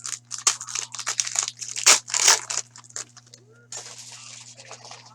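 Foil hockey card pack wrappers being torn open and crinkled by hand, a dense run of crackling tears loudest about two seconds in, then a steadier rustling near the end.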